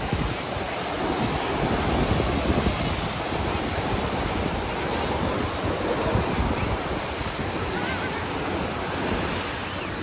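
Surf breaking and washing up a sandy shore: a steady wash of noise, with wind rumbling on the microphone.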